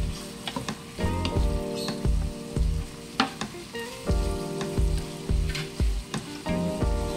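Pork, carrot and bell pepper strips sizzling in a hot wok as they are stirred with a wooden spatula, which scrapes and knocks against the pan. Background music with a steady beat plays underneath.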